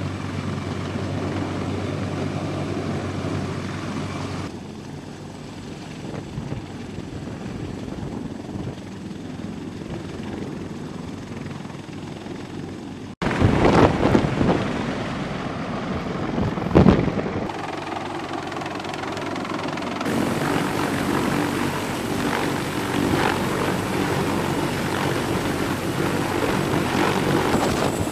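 CH-53E Super Stallion heavy-lift helicopter hovering close by, its three turboshaft engines and big main rotor running in a steady heavy rumble. A little after halfway, loud gusts of rotor downwash buffet the microphone.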